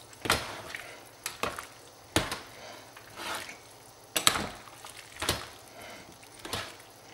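A spoon stirring chunky chicken-and-pineapple stew in a Nesco electric roaster oven's cooking well: about eight irregular clacks of the spoon against the pot, with wet squelching of the saucy food between them.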